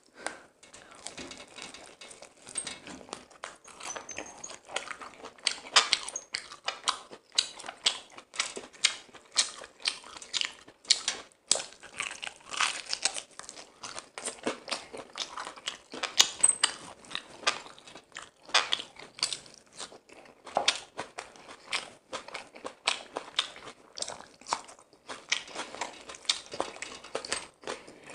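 Close-miked eating: a person biting and chewing crisp fried chicken, with many sharp, irregular crunches.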